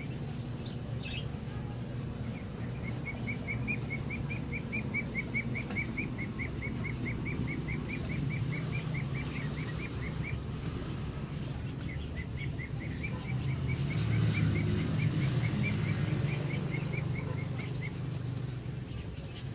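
A puppy digging in loose soil with its front paws, scratching and scraping the earth. Over it, two long runs of rapid high chirps, about five a second.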